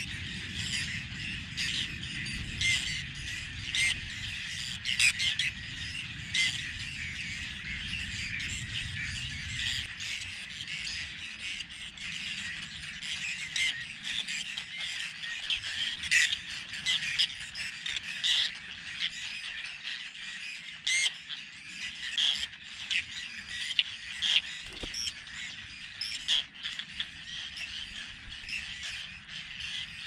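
A colony of whiskered terns calling over the wetland: many short, harsh calls overlapping continuously. A low rumble fades out about ten seconds in.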